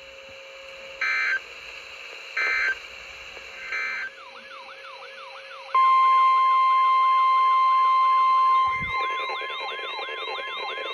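Three short squawking bursts of Emergency Alert System data tones (the end-of-message code). Then a warbling alarm sweeps up and down about three times a second. About six seconds in, the loud steady 1050 Hz NOAA Weather Radio warning alarm tone starts and holds, with the warble still going under it.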